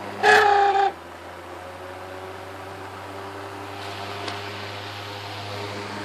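WeatherWorks box fan's small electric motor running with a steady hum, and about half a second in a loud, steady squeal lasting about half a second from its worn-out bearings.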